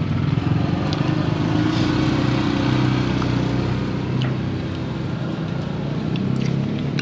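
Road traffic engines running steadily as a continuous hum, with a few light clicks of a metal spoon against a ceramic bowl.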